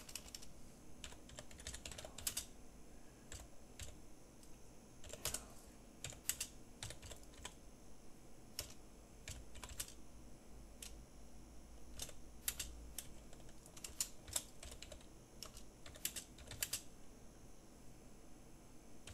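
Computer keyboard being typed on in quick, irregular runs of faint keystroke clicks, with short pauses between words.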